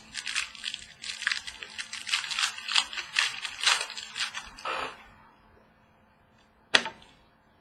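Trading card pack wrapper being torn open and crinkled, with cards handled and slid, making a dense irregular crackle. It stops about five seconds in, and a single sharp click follows near the end.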